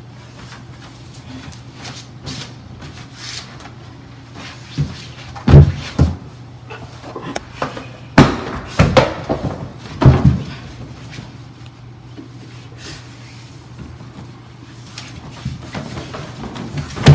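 A handful of knocks and thumps, the loudest about five and a half seconds in, over a steady low hum.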